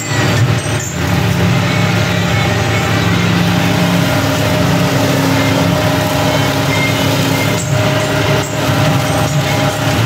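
John Deere 5045D tractor's three-cylinder diesel engine running steadily under load while driving a Maschio Terminator rotary tiller through sugarcane trash. A higher steady whine joins for a few seconds in the middle, and there are a few brief knocks.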